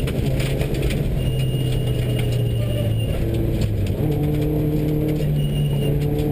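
Subaru rally car's flat-four engine running hard under load, heard from inside the cabin on a gravel road, with loose gravel ticking against the underbody. The engine note steps to a different pitch about four seconds in.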